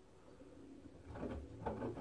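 LG front-loading washing machine tumbling a wash load: about a second in the drum turns and the water and laundry inside slosh with a low, hollow swishing.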